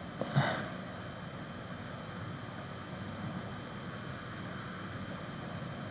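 Steady room hiss, with one short, sharp sound about a third of a second in.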